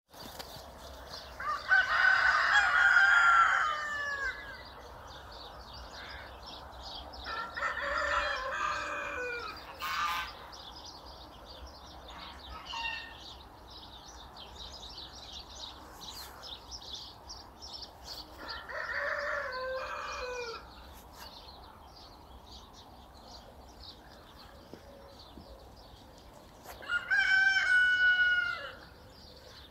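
A rooster crowing four times, each crow about two seconds long and falling in pitch at the end, with short bird chirps in between.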